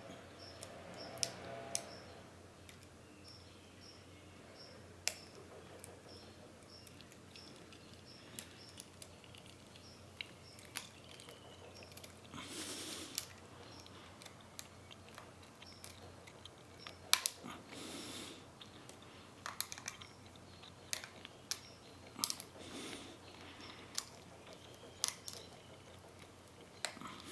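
Lock picks and a tension wrench working inside a Medeco Duracam padlock core: scattered small metallic clicks and taps as the pins are lifted and rotated, with a few soft rustles in between.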